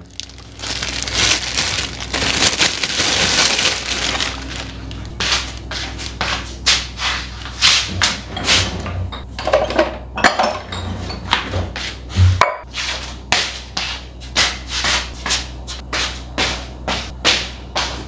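A hand brushing over a wooden board, then a long run of short sharp knocks, about two or three a second.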